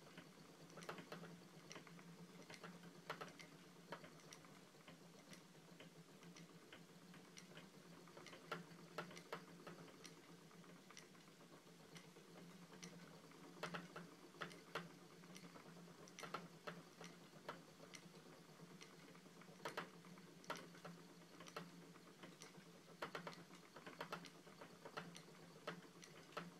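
Spinning wheel being treadled during long-draw spinning: soft, somewhat uneven clicks and ticks, often in pairs, about every second or two, over a faint steady hum.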